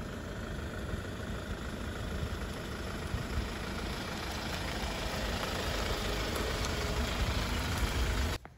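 Hyundai Starex van driving slowly past with its engine running, getting gradually louder as it comes close. The sound cuts off abruptly near the end.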